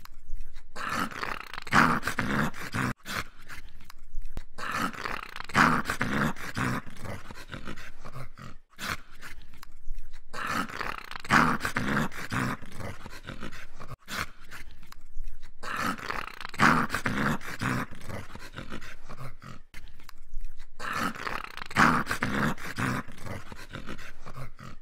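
A dog growling in five long bouts of a few seconds each, with short breaks between.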